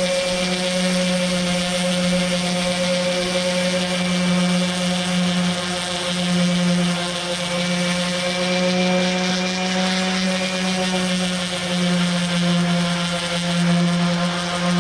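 Electric sander with 80-grit paper running steadily, sanding down cured resin filler on a surfboard repair; a steady motor hum with small dips as it is worked over the surface.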